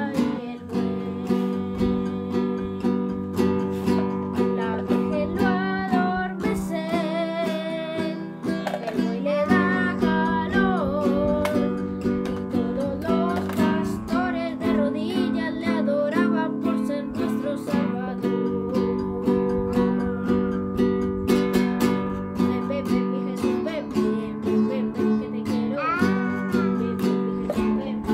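Acoustic guitar strummed in a steady rhythm, with a child singing a melody over it.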